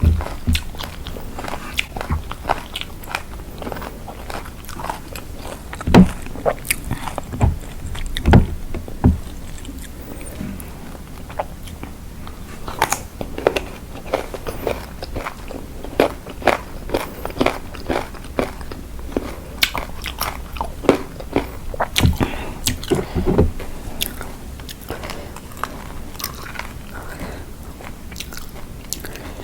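Close-miked chewing and biting of spicy Thai lime salad, with frequent crisp crunches and wet mouth sounds, and a few louder bites standing out.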